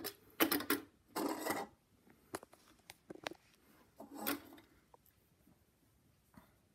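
O scale three-rail tinplate track and a tinplate wagon being handled on a wooden table: a few short scrapes in the first two seconds, then scattered light clicks and knocks.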